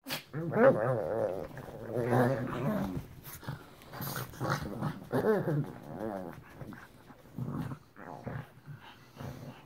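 Pugs growling at each other while play fighting (bitey face), in wavering bouts that are loudest over the first three seconds and then come and go more quietly.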